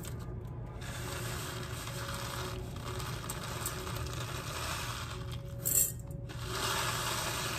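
Dry uncooked rice pouring: grains running from the bag into a silicone measuring cup with a steady hiss, and a short louder rush about three-quarters through as a cupful is tipped into the rice cooker's pot.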